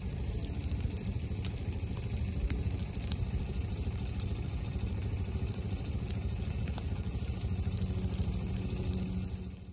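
Low ground fire burning through dry leaf litter: a steady low rumble with scattered small crackles and pops. The sound fades out right at the end.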